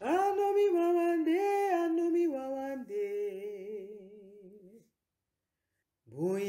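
A single voice singing unaccompanied: long held notes with vibrato that step downward and fade out. After about a second of silence, a new sung phrase begins near the end.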